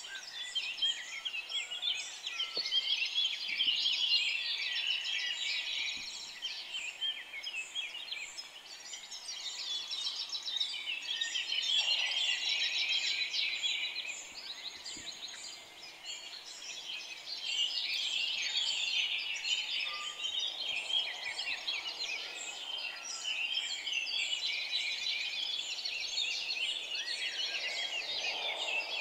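Many small birds chirping at once in a dense, continuous chorus.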